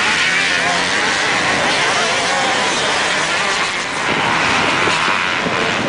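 Several motocross motorcycles running and revving together, making a dense, loud din of engine notes that rise and fall.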